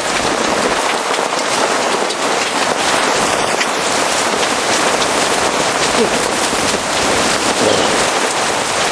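Heavy rain mixed with hail pelting down in a thunderstorm: a loud, steady rushing hiss peppered with many small sharp ticks of hailstones striking.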